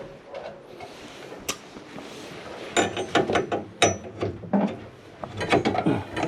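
Rapid mechanical clicking and clanking in two bursts, the second starting about two seconds after the first, with a single sharp click before them: tools and metal parts being worked.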